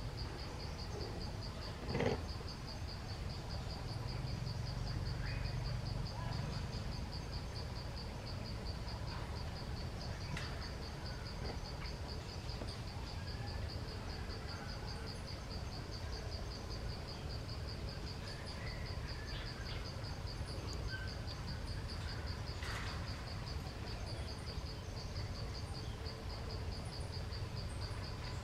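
Insects trilling steadily in a fast, even pulse, with a few faint bird chirps and a sharp knock about two seconds in, over a low background rumble.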